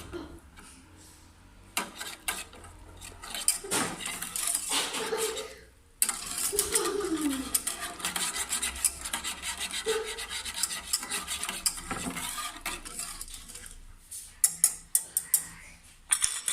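A metal spoon stirring the milk mixture, scraping and clinking against the sides of the pot in a quick rhythm through the middle, with a few sharper clinks near the end.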